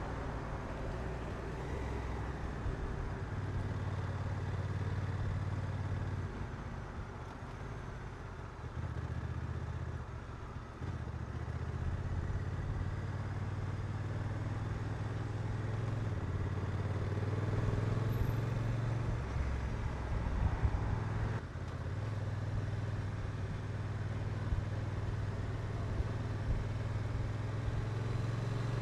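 Honda NT1100's 1084 cc parallel-twin engine running under way. Its note steps down and up several times as the revs change.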